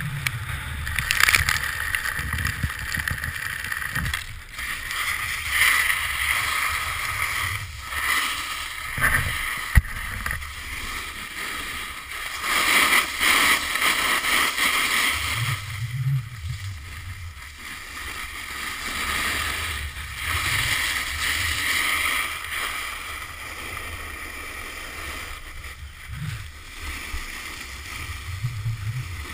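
Snowboard edges scraping and carving across groomed snow, a hiss that swells and fades with each turn. Low rumbles of wind buffet the microphone now and then.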